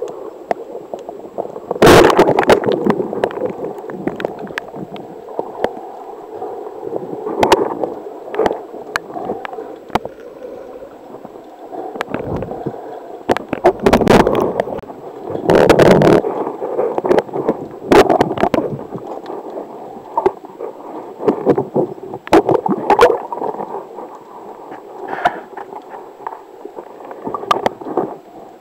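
Muffled underwater noise picked up by an underwater camera: gurgling, bubbling water with irregular knocks and clacks, the loudest a sharp knock about two seconds in.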